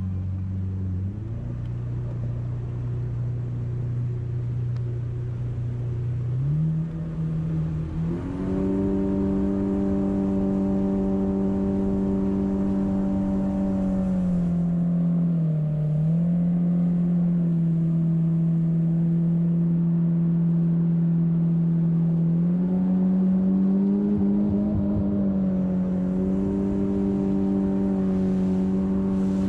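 Jet boat's outboard jet motor running under way. Its pitch climbs in steps over the first third to a steady cruise, dips briefly near the middle, and picks up again about three quarters through.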